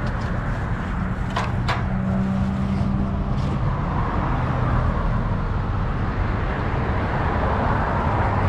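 Road traffic on a busy street, cars passing one after another, their noise swelling and fading over a steady low rumble. Two short sharp clicks come about a second and a half in.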